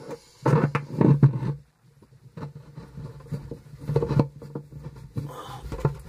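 Washing machine activator shaft being pushed and worked by hand into its tight-fitting seat in the plastic tub: irregular rubbing and knocking handling noises, loudest about a second in and again near four seconds.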